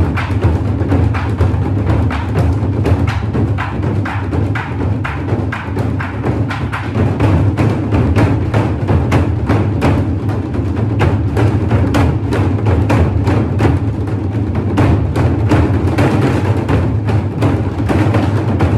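Music driven by percussion: a fast, even run of sharp hits over a steady low bass.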